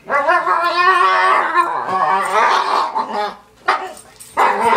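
Large dog 'talking': long drawn-out vocal noises with a wavering, bending pitch. The first lasts about three seconds, a short yelp follows, and another starts near the end. This is the dog's excited greeting of a returning family member.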